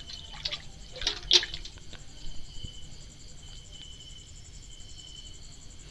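Low sizzling of oil as grated-potato and chickpea-flour fritters shallow-fry in a pan, with a few louder crackles about a second in.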